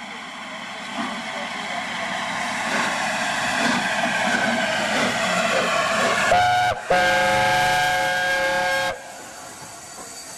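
LNER A4 steam locomotive running and growing steadily louder, then sounding its chime whistle: a short blast, a brief break, and a longer blast of about two seconds that cuts off sharply.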